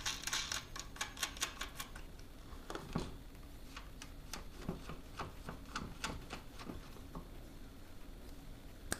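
Faint, irregular clicks and ticks from hand work at the e-bike's front wheel: a quick run of clicks in the first second or so, then sparser ticks.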